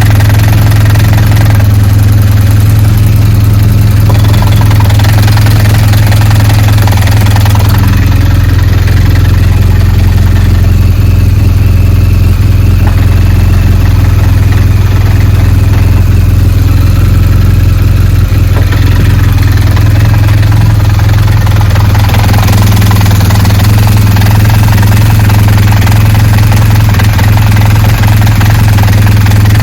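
BMW R1200GS boxer-twin motorcycle idling steadily, with a loud steady low hum. This is the gearbox noise the bike is being checked for.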